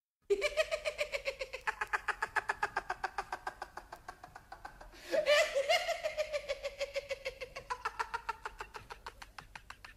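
A high, squeaky cartoon voice giggling in a long, rapid, staccato run of about nine pulses a second, sagging slowly in pitch, with a louder fresh burst of laughter about five seconds in.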